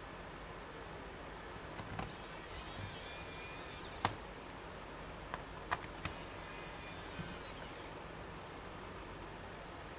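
Small electric screwdriver driving screws into a laptop's bottom cover: two high whining runs of about two seconds each, with sharp clicks as a screw seats and the driver is handled.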